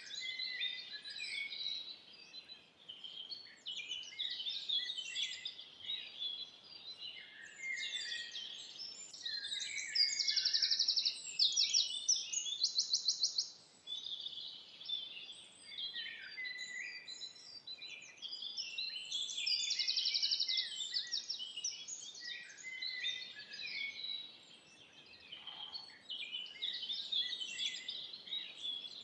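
Many forest songbirds singing at once, a dense mix of chirps, whistles and short phrases. Loud, fast trills of evenly repeated notes stand out about ten seconds in, again a few seconds later, and once more past the middle.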